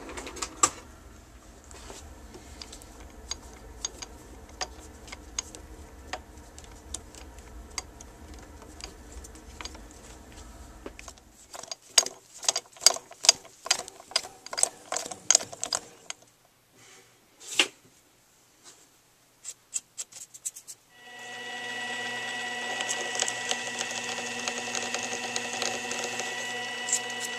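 Small metal lathe: scattered light clicks and a quick run of sharp metal clicks and knocks while a screw is threaded in the chuck, then about three-quarters of the way in the lathe's motor starts and runs with a steady whine.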